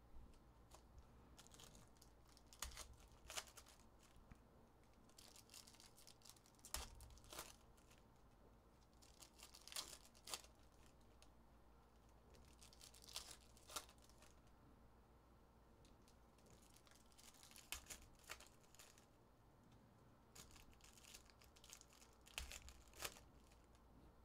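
Faint rustling and crinkling of foil trading-card pack wrappers and cards being handled, in short bursts every few seconds.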